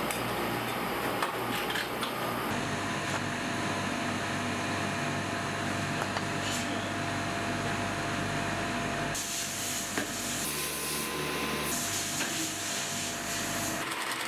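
Shoe-factory machinery running: a steady mechanical hum with a few held tones that changes abruptly several times. Just before the end, a shoe sewing machine starts stitching with a fast even rhythm.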